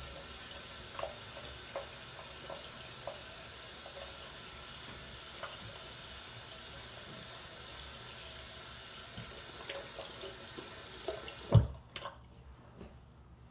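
Bathroom sink tap running steadily, with faint ticks of water. Near the end there is one sharp knock and the water stops.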